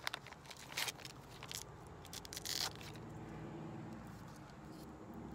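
Thin clear plastic bag crinkling and rustling as a patch is worked out of it by hand, a few short rustles in the first half, over a steady low hum.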